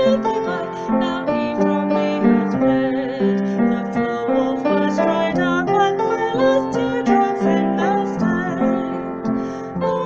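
Piano playing a melody over held chords: an instrumental passage in a song.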